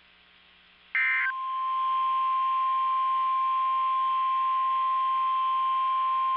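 NOAA Weather Radio: about a second in, a short burst of screechy SAME digital data tones, then the steady 1050 Hz Weather Alert Tone starts and holds. This is the alarm tone that announces a new warning is about to be broadcast.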